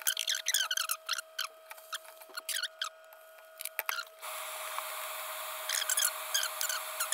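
Hot oil crackling and popping under eggs frying in a nonstick pan. About four seconds in, this gives way to a steady sizzle with scattered pops as dried salted fish (tuyo) fry in oil.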